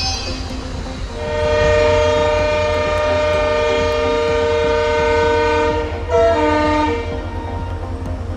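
Train locomotive horn: one long steady blast of about five seconds, then a shorter second note at a different pitch, over the steady low rumble of the moving train.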